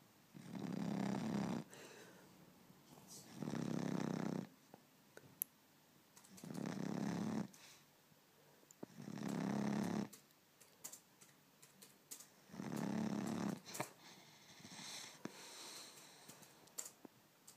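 A three-month-old Cane Corso puppy snoring in its sleep: five loud snores, each about a second long, coming roughly every three seconds, then quieter breaths near the end.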